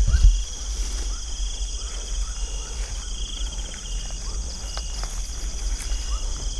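A chorus of crickets and other night insects: several steady high trills at once, with short rising chirps recurring every second or so. A low rumble of handling sounds in the first moment.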